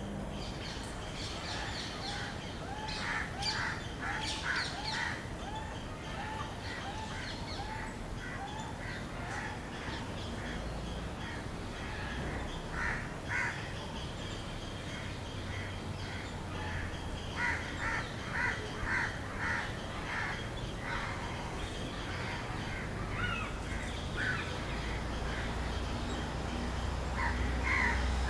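Crows cawing in runs of several calls, about two a second, with a small bird's short chirps repeating in the first few seconds.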